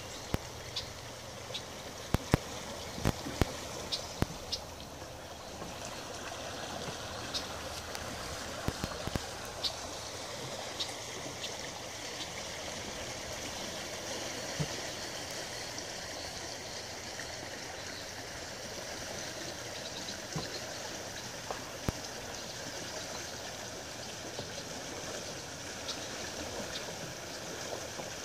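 Steady rush of shallow river water running over a gravel riffle, with scattered sharp ticks that come more often in the first ten seconds or so.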